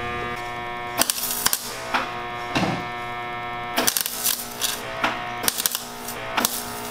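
MIG welder's arc crackling in several short bursts, a second or less each, starting about a second in, as tack welds go onto a transmission bracket. Under it runs the welder's steady electrical hum.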